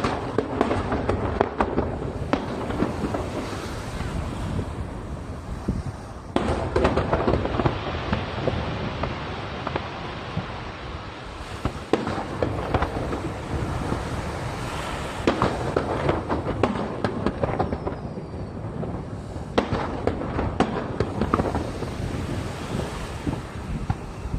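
Aerial fireworks shells bursting in rapid, overlapping bangs with dense crackling. The barrage swells again about six, fifteen and nineteen seconds in.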